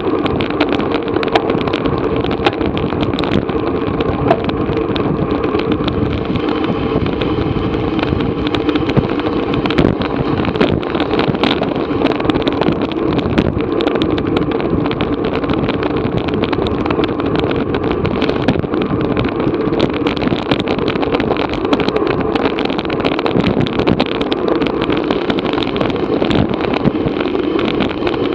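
Wind and road noise on an action camera riding along with a racer in a bicycle race. It is a loud, steady rush with many small clicks and knocks scattered through it.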